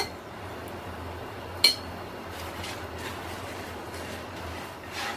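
A spatula knocking against a tawa griddle pan: one sharp clink about one and a half seconds in and a few fainter ticks, over a low steady hum.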